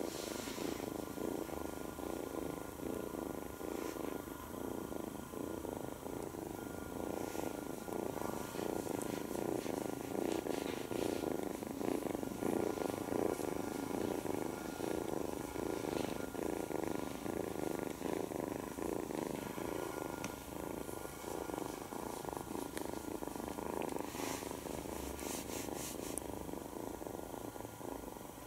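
Nine-week-old tabby kitten purring steadily and contentedly while being stroked, a close, continuous purr. A few light rustles come near the end.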